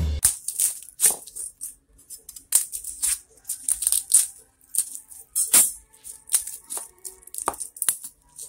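Dry, papery garlic skins crackling and rustling as a garlic bulb is broken apart and its cloves are peeled by hand. The crackles come irregularly with short quiet gaps, and a few sharper ones come near the middle and toward the end.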